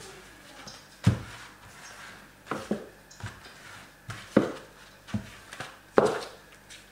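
Wooden rolling pin rolling dough out thin over a floured cloth on a kitchen counter, with repeated sharp knocks about a second apart as it bumps the worktop.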